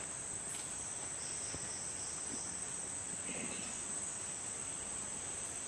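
A steady, high-pitched chorus of insects, unbroken throughout.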